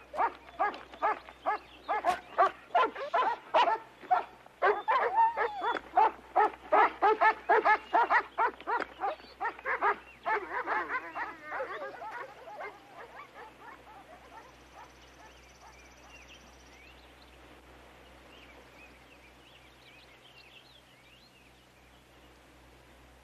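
Dogs barking in rapid succession for about ten seconds, then fading away until only faint background remains.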